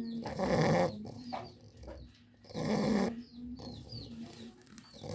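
English bulldog snoring: two loud, rasping snores about two and a half seconds apart.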